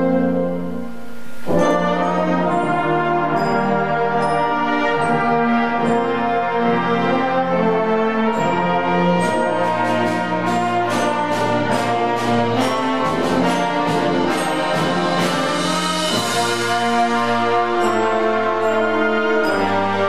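Concert band of woodwinds, brass and percussion playing a slow piece. After a brief dip in level the full band comes in about a second and a half in, and a run of quick percussion strokes sounds around the middle.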